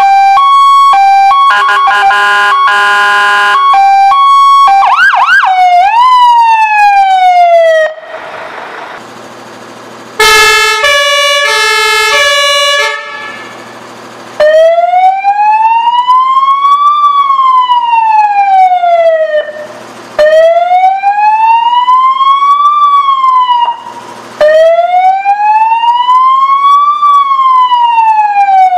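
Fire engine electronic sirens running through their tone patterns. First comes a high-low two-tone, then faster warbling and yelping tones and a loud blast of several steady notes at once. From about halfway on it settles into a slow wail that rises and falls every few seconds, with two brief breaks.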